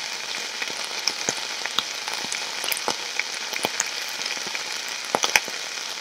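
Bacon frying in a pan: a steady sizzle with scattered crackling pops, used as a foley stand-in for rain.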